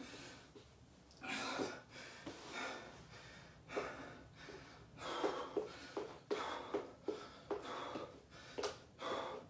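A man's heavy breathing, hard breaths in and out about one to two a second, coming closer together in the second half: he is winded, recovering from a set of burpees.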